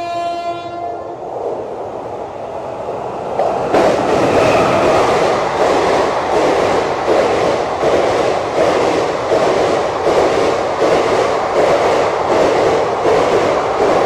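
A train horn sounds and stops about a second in; then a passenger train runs through the station close by at speed, a loud rush that sets in about four seconds in, with the wheels clattering over the rail joints about twice a second.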